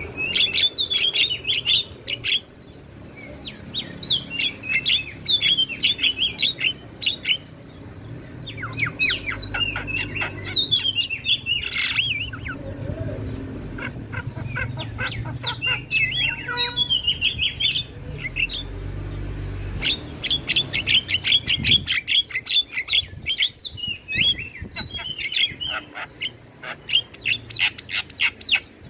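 Javan myna (jalak kebo) singing in rapid chattering bursts of short, quick notes, with brief pauses between phrases, over a faint low rumble.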